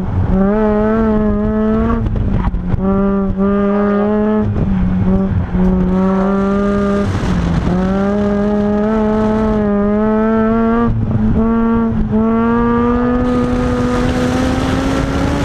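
Mazda RX-8's two-rotor Wankel rotary engine pulling hard under load. Its note dips briefly several times as the throttle lifts between cones, then rises steadily near the end as it accelerates.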